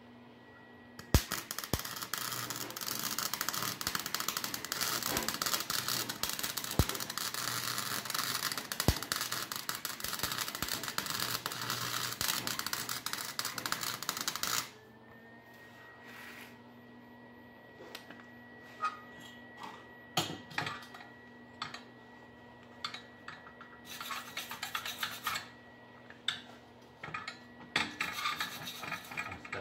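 Welding a new steel exhaust pipe: a steady crackling weld bead starts about a second in and stops suddenly at about the halfway point. After that come scattered scrapes and light metal knocks as the pipe is handled, over a faint steady hum.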